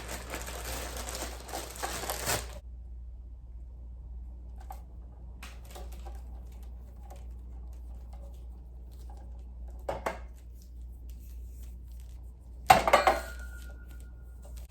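Handling of a sewing machine being plugged in and powered up: a loud rustling for the first couple of seconds, then a few light clicks and a knock, and a sharp clunk near the end followed by a brief steady tone.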